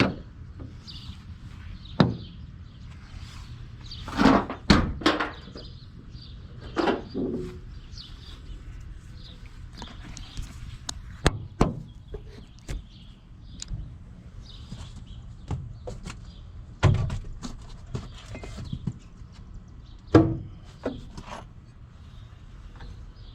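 Loose car parts and junk being handled and tossed into a car's trunk: irregular thunks, knocks and clatter, with a few louder clusters of knocks.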